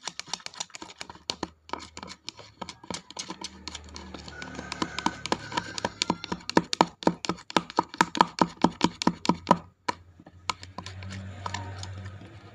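Slime mixture being stirred in a container: a quick run of sharp clicks and taps from the stirrer, settling into an even rhythm of about four to five strokes a second, with a short break near ten seconds in.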